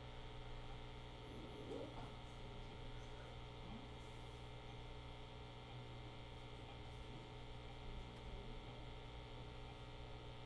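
Low, steady electrical mains hum with room tone, and a couple of faint, brief sounds about two and four seconds in.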